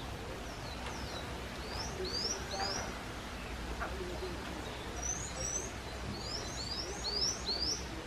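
Bird chirping: short, high notes that sweep upward, in quick runs of two to four, the loudest run near the end, over a steady low rumble.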